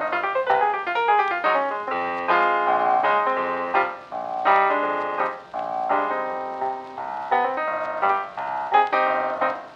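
Background piano music, a melody of quick notes.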